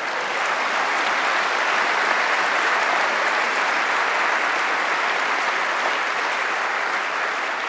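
A large audience applauding in an auditorium: a steady wash of many hands clapping that builds over the first second.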